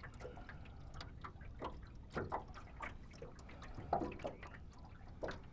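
Water lapping and dripping around a small boat, in irregular small slaps and splashes, with louder splashes about two and four seconds in.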